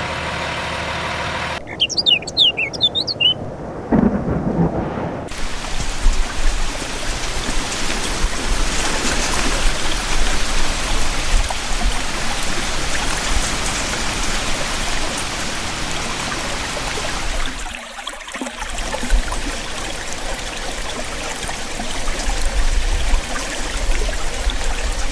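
Steady heavy rain with a low rumble like a thunderstorm, briefly dropping out about 18 seconds in. Its opening seconds hold short high chirps and a low pitched sound.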